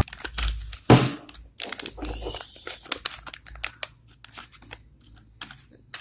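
Plastic packaging crinkling and tearing as it is opened by hand, with irregular crackles and a sharp snap about a second in, growing sparser near the end.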